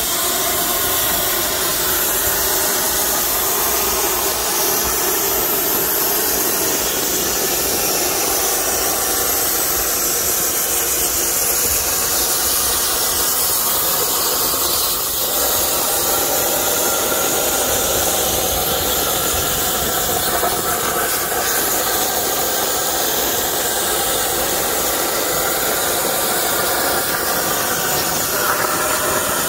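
Plasma torch of a Langmuir CrossFire Pro CNC table cutting stainless steel sheet: a steady, loud hiss of the arc and cutting air that does not break.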